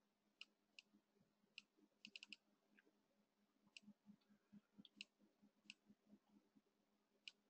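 Faint computer mouse clicks over near silence, mostly single, with a quick run of four about two seconds in.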